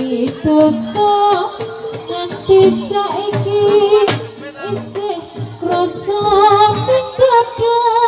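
Live Javanese gamelan music accompanying a jathilan dance, with a singer's melodic line bending over the ensemble. A sharp crack cuts through about four seconds in.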